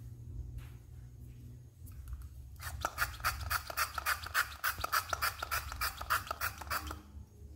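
Hand-pumped cooking-oil sprayer spritzing oil into a frying pan: a quick run of about twenty short hissing sprays, four to five a second, starting a few seconds in and stopping near the end, over a low steady hum.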